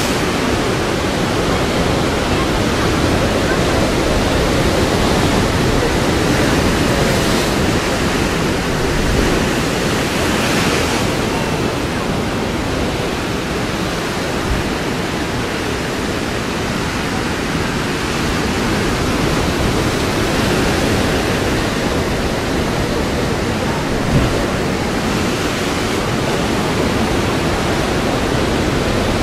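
Ocean surf breaking against granite ledges and surging into a narrow rock chasm: a steady wash of breaking water, with louder crashes about seven and ten seconds in.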